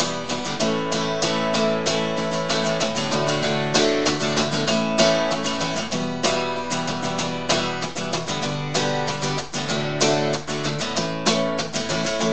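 Acoustic guitar playing chords in a quick, busy rhythm, without singing: an instrumental break between verses of a song.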